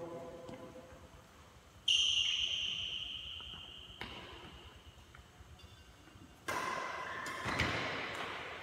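Indoor badminton doubles rally: high, sharp squeaks of court shoes on the synthetic court mat about 2 s and 6.5 s in, ringing on in the large hall. A single crisp pop of a racket striking the shuttlecock comes about 4 s in.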